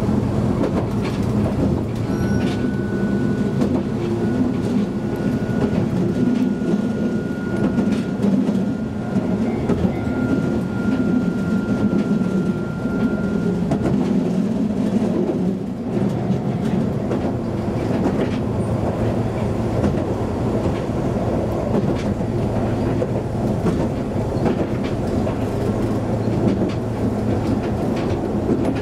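Onboard running sound of a Chikuho Electric Railway tram: a steady low rumble with occasional light clicks of the wheels on the rails. A thin high tone holds for about twelve seconds in the first half, then stops.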